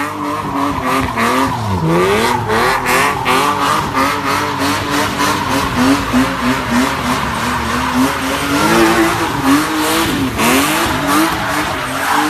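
BMW E30 convertible doing donuts: engine held at high revs with its rear tyres squealing and smoking. The engine note wavers and twice dips sharply and climbs back.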